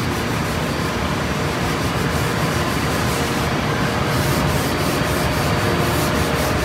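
Sandpaper on a wooden hand sanding block scrubbing back and forth over the gray primer of a cabinet door, sanding the flat face and the inside edge in the same strokes. The strokes become quicker and more distinct about four seconds in.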